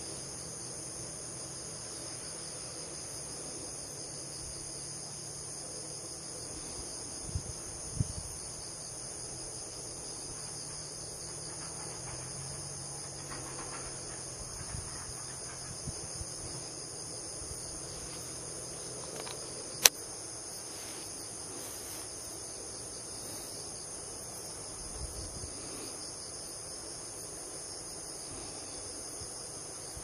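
Steady chorus of crickets trilling in several overlapping high-pitched bands. A couple of dull knocks come about eight seconds in, and a single sharp click about twenty seconds in.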